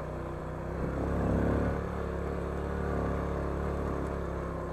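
Honda XRM 125 Fi's single-cylinder four-stroke engine running under load as the motorcycle climbs a dirt trail. The revs rise about a second in, then settle to a steady pull.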